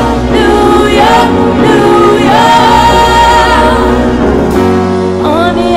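Music with singing: voices holding long, gliding notes over a low bass line.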